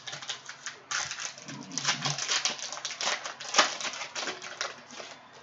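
Cellophane wrapper of a Panini Prizm basketball cello pack crinkling and crackling as it is torn open by hand, an irregular run of quick crisp clicks, loudest about halfway through.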